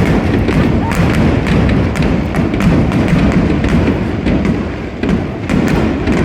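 Fireworks display: a dense, continuous run of aerial shell bursts, low booms overlapping one another with many sharp cracks among them.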